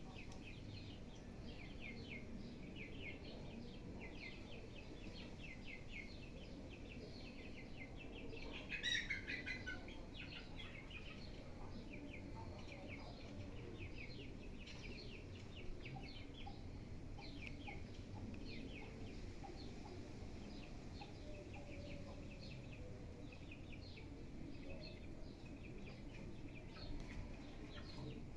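Birds chirping, a long run of quick short chirps, with one louder falling call about nine seconds in.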